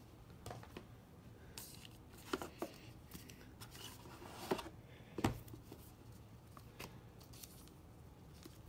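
Hands handling cardboard game components and plastic-bagged card packs in a cardboard game box: scattered light taps and short rustles, the loudest about five seconds in.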